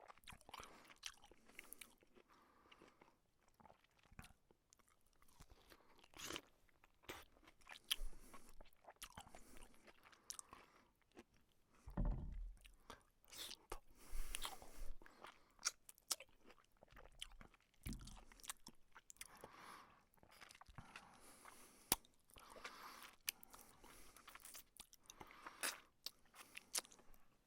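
A person eating: irregular chewing and biting sounds, with a few louder bumps about halfway through.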